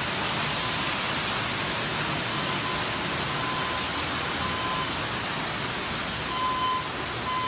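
Water gushing and spraying steadily from a burst pipe that is flooding a house. Faint short high beeps sound now and then, more often near the end.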